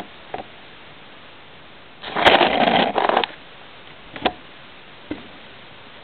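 Handling noises: a scrape or rustle lasting about a second, a couple of seconds in, and a few light knocks.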